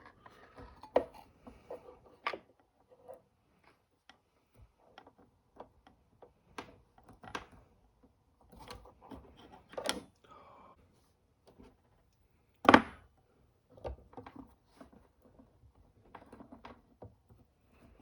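Small objects being handled on a work surface: scattered light taps and clicks with soft rubbing, and one sharp click about two-thirds of the way through.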